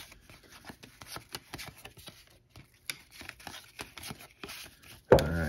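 1986 Topps baseball cards being handled and flipped through one at a time: many light clicks and soft rustles of thin cardboard sliding against cardboard.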